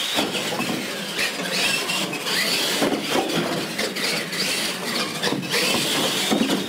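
Brushed electric motors and gearboxes of two RC Clod Buster-type monster trucks whining as they race, the pitch rising and falling as the trucks speed up and slow.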